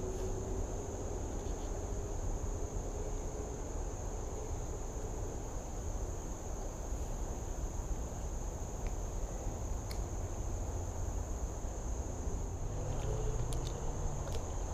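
Steady high-pitched drone of insects singing, one unbroken pitch, over a low rumble, with a few faint clicks.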